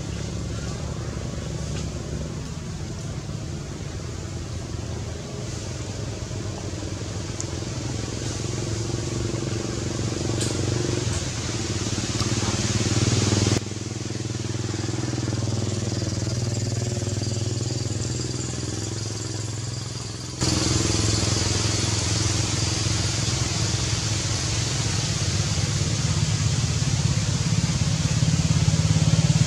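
A steady low engine-like drone with outdoor background noise, changing abruptly twice, about 14 and 20 seconds in.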